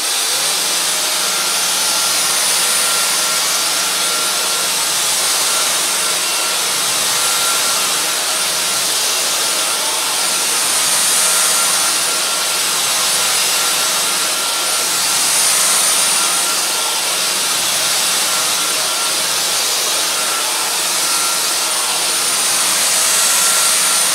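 Dyson DC35 Digital Slim cordless stick vacuum running in max mode, its motorised floor head pushed back and forth over carpet: a loud, steady high whine with slight swells in level.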